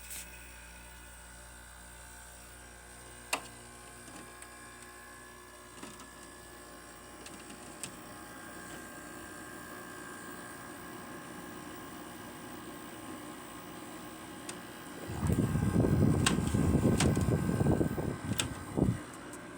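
Goldstar window air conditioner running on high fan with its compressor on: a steady hum with a few faint clicks. Near the end a loud, irregular rumbling noise lasts about four seconds.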